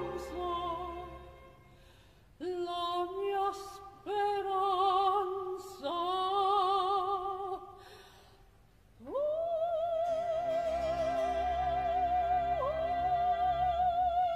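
Operatic soprano singing a slow Baroque aria with wide vibrato: a falling phrase that fades, three short phrases separated by pauses, then a long held note that scoops up about nine seconds in. Orchestral strings accompany softly underneath the held note.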